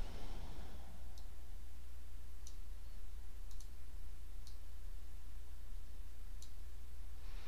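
A handful of faint, sharp computer mouse clicks, spaced a second or so apart, over a steady low electrical hum on the recording.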